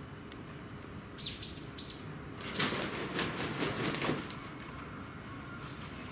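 Steller's sea eagle beating its wings on its perch: a quick run of whooshing wingbeats lasting about a second and a half. Just before, three short high rising chirps.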